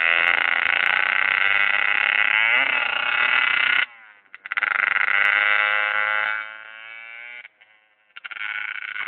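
Loud buzzing whine of a small electric motor running in spurts. It cuts off sharply about four seconds in, runs again, drops lower, stops for a moment and starts up again near the end.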